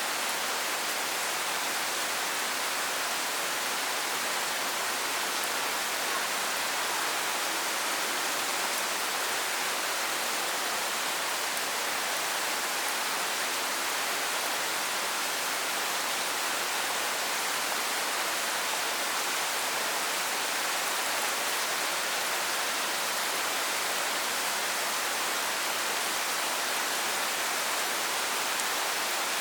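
Steady rain falling: an even, unbroken hiss with no separate sounds standing out.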